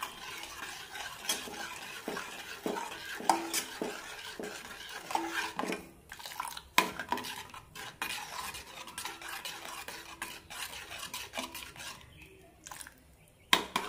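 Steel ladle stirring simmering coconut milk in a metal saucepan, with irregular clinks and scrapes against the pan's sides and bottom, stirred so the milk doesn't catch on the bottom. The clinks thin out near the end.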